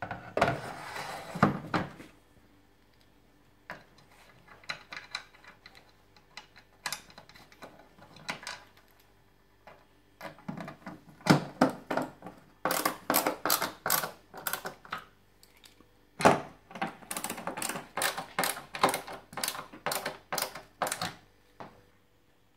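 Screwdriver driving in the screws that fix the stand to the back of a Samsung JU6800 TV: runs of sharp clicks, about five a second, with a few scattered clicks at first and two longer runs in the second half. A brief rustle and clatter comes at the very start.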